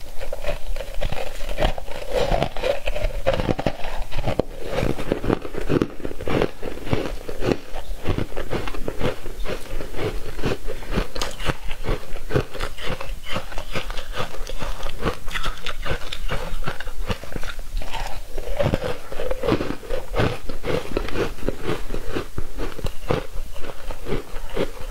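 Close-miked biting and chewing of matcha-dusted foam ice: a continuous run of quick, crisp crunches as the aerated ice is bitten and chewed.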